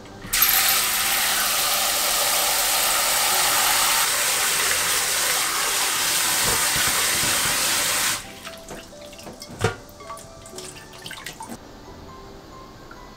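Kitchen tap running hard into a glass bowl of bracken fern shoots while a hand stirs them in the water, for about eight seconds, then shut off abruptly. Afterwards come small splashes and drips with one sharp knock.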